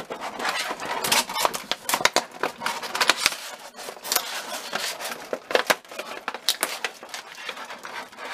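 Clear plastic blister tray being handled and pried apart by hand: thin stiff plastic clicking, crackling and crinkling in irregular snaps.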